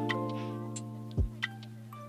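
Background music: sustained chords over a slow drum beat, with a kick drum hit a little past the midpoint.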